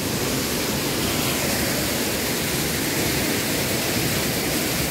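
Waterfall making a steady, even rush of falling water.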